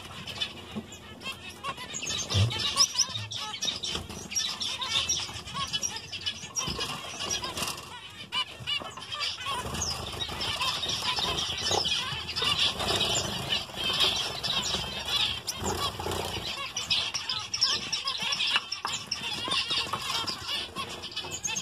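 A flock of zebra finch hens calling, a dense chatter of many short overlapping chirps, busier in the second half.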